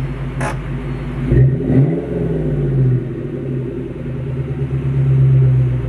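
1998 Mustang SVT Cobra's 4.6-litre DOHC V8 idling at the exhaust, with one quick rev about a second and a half in that rises and falls back to a steady idle.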